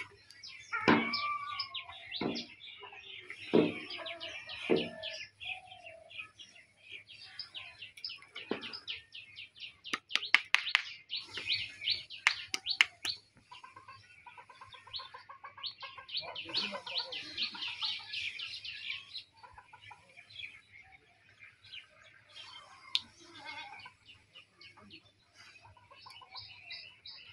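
Small birds chirping rapidly and continuously, with chickens clucking now and then, loudest in the first five seconds.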